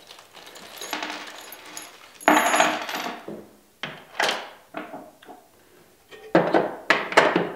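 Small loose metal hardware, hex (Allen) keys and washers, clinking as it is handled and set down: a string of sharp metallic clicks with short ringing, the loudest about two seconds in and a cluster near the end, with some rustling between them.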